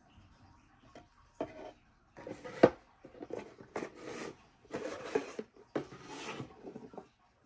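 Hands handling a wallet and its packaging: a run of short rubbing and rustling bursts, with a sharp tap or click about two and a half seconds in, the loudest sound.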